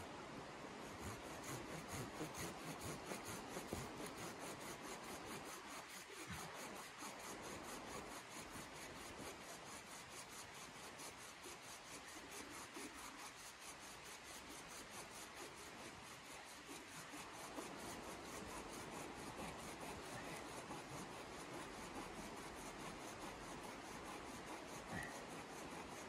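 Steady rasping of a hand tool working into a wooden pole.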